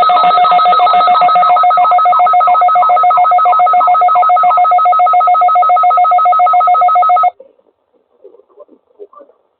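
Electronic alert tone: a steady two-pitch alarm, pulsing rapidly, that cuts off suddenly about seven seconds in.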